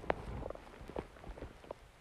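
Human stomach gurgling: a low rumble fades out in the first half-second, followed by scattered small pops and clicks.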